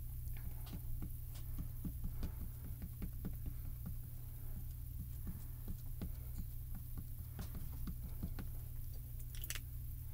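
Small ink cube dabbed over and over onto a clear photopolymer stamp on an acrylic block, inking it in the next green: soft, rapid taps, about three or four a second, stopping near the end.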